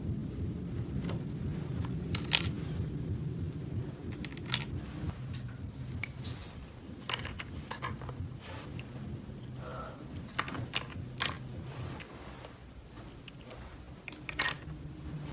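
Small plastic toy pieces being handled, giving scattered light clicks and taps, over a steady low hum that fades about twelve seconds in.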